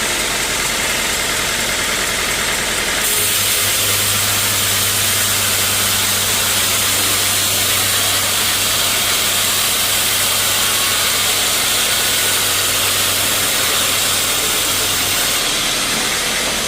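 Sawmill machinery running steadily. About three seconds in, a stronger hiss and a low steady hum come in, as if the saw takes up work, and they drop away again near the end.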